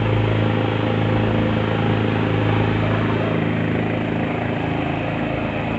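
Lifeboat engine running steadily with the boat under way: an even, unchanging drone.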